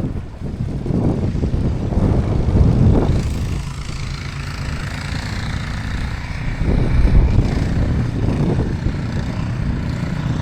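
A motor vehicle passing on the street, a low engine rumble with a hiss that swells about three seconds in and then fades.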